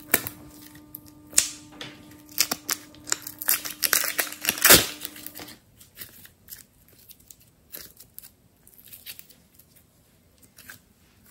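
Blue slime squeezed from a piping bag and then kneaded and stretched by hand, making a string of sharp wet clicks and pops. They are dense and loudest in the first half, then sparser and quieter after about five and a half seconds.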